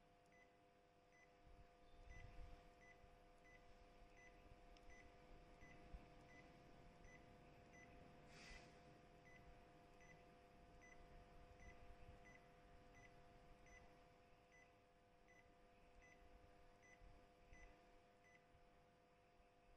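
Faint short beeps from an Epson ink-tank printer's touchscreen control panel, about one every three-quarters of a second, as its scroll arrow is tapped again and again, over a faint steady hum.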